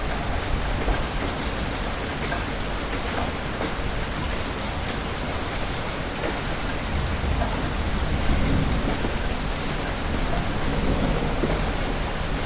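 Steady rain falling with rolling thunder, the low rumble swelling about two-thirds of the way through.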